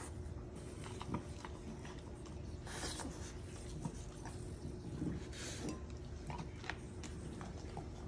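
French bulldog licking out the inside of a plastic measuring jug: a run of small wet licks and clicks, with two longer scraping sounds, about three and five and a half seconds in.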